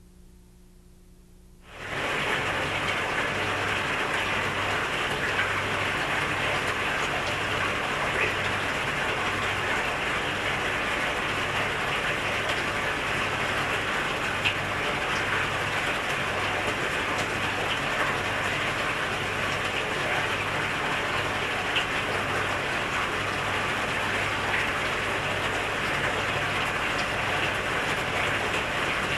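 A steady hiss like rain or running water starts abruptly about two seconds in and holds at an even level, with a faint low throb repeating a little more than once a second underneath.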